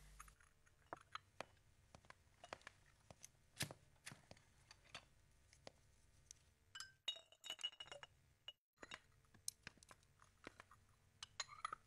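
Faint, scattered clinks of chopsticks and tableware against porcelain bowls, plates and glasses as people eat at a dinner table, a few light taps a second at irregular intervals.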